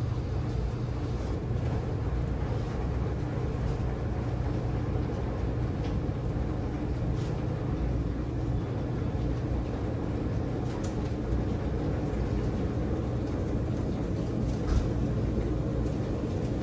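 Dexter T900 front-loading commercial washer running mid-cycle, a steady low motor hum and drum noise, with a brief knock near the end.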